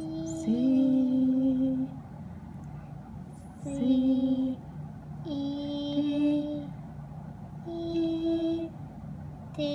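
A beginner piano student sight-singing from the music, one held note at a time, each about a second long with pauses between, about five notes in all.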